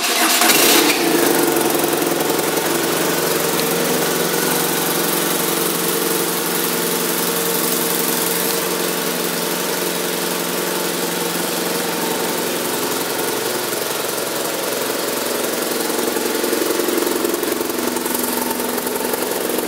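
A 2010 BMW R1200RT's air/oil-cooled boxer-twin engine starting up, with a brief surge in the first second, then settling into a steady idle.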